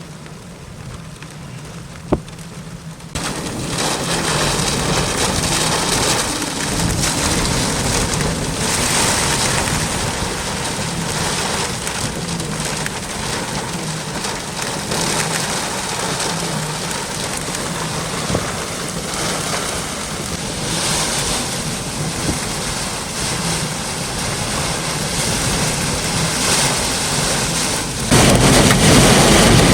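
Heavy rain falling, coming in suddenly about three seconds in as a dense, steady hiss and getting louder near the end. A single sharp click sounds just before the rain starts.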